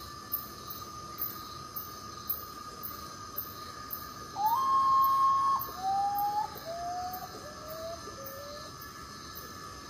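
Common potoo singing: a long whistled note, then four shorter notes, each lower than the last, over a steady background drone.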